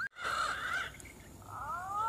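Green pigeons (punai) calling: whistled notes that glide upward, then a quick run of warbling notes. The calls break off suddenly just after the start and come back after about a second and a half.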